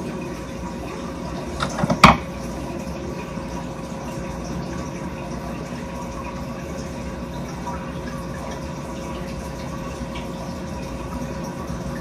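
Water running steadily into a stainless steel sink, with a brief loud wet squelch about two seconds in.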